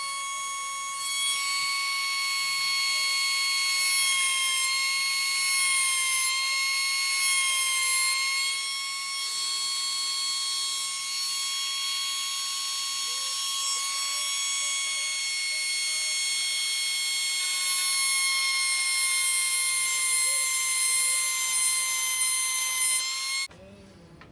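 Small high-speed rotary tool with a coarse 50-grit abrasive grinding metal on a folding knife. It gives a steady high whine with a gritty hiss that swells and eases as it bears on the work, and it cuts off abruptly near the end.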